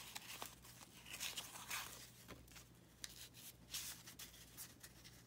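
A stack of baseball trading cards being sorted and shuffled in the hands: faint, irregular papery rustles and soft flicks as the cards slide against each other.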